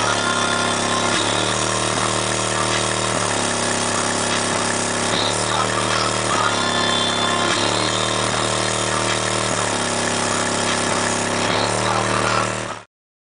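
Car audio system playing bass-heavy music through a pair of subwoofers in a trunk box. The notes change in a repeating pattern about once a second, and the sound cuts off suddenly near the end.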